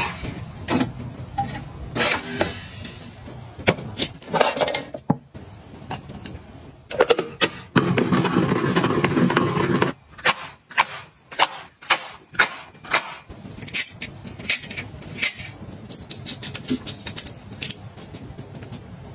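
Household objects being handled and set down: a string of clicks, taps and rustles, with a steady rushing noise lasting about two seconds near the middle.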